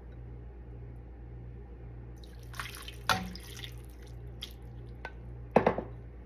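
Kitchen water dripping and splashing briefly, with a few sharp clinks, the loudest about three and five and a half seconds in, over a steady low hum.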